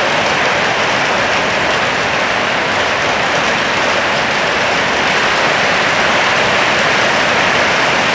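Steady, heavy rain hissing without a break.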